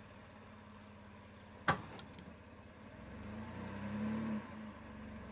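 2018 Chevy Colorado ZR2 pickup's engine running low and steady as the truck crawls over rough ground. There is a single sharp knock about a second and a half in. A brief push of throttle comes around three to four seconds in, then the engine settles back as the truck eases down off an obstacle.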